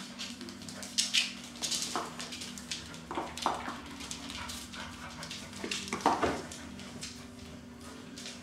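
Standard poodle puppies at play: several short whimpers and yips, with sharp scuffling clicks between them.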